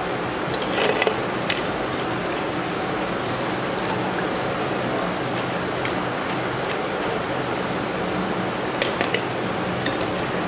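Oil sizzling steadily as lentil fritters deep-fry in a pan, with a few light taps of a wire-mesh skimmer against the pan about a second in and again near the end.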